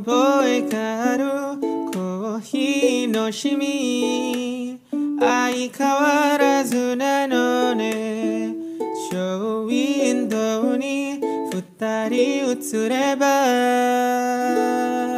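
Background music: a song with a singing voice over plucked strings, ukulele-like.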